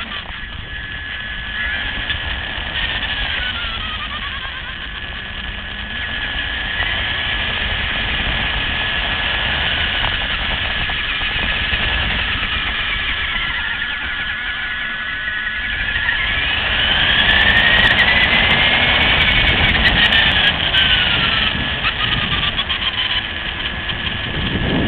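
Electric motor and gears of a LaTrax RC car whining, the pitch rising and falling with the throttle, over rumble from the tyres on the ground. It sounds thin and cut off at the top, as picked up by the car's onboard FPV camera.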